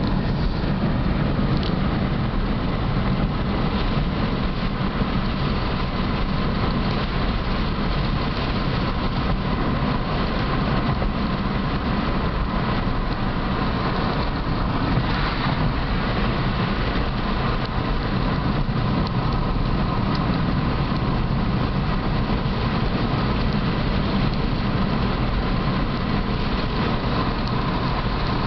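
Steady road noise of a car driving along a paved country road, heard from inside the car: engine and tyres running evenly, with a brief louder patch about halfway through.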